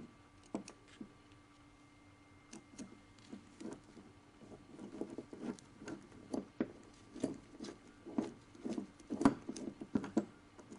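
Small metallic clicks and taps of a hex key working the socket-head screws of a steering-damper frame bracket, a few scattered clicks at first, then several a second from about four seconds in.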